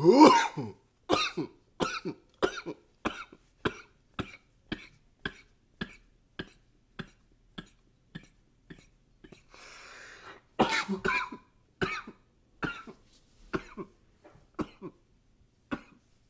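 A man coughing in a long fit: one hard cough, then a run of short coughs about two a second that grow fainter. About nine and a half seconds in there is a noisy breath, then a louder cluster of coughs and more short coughs after it.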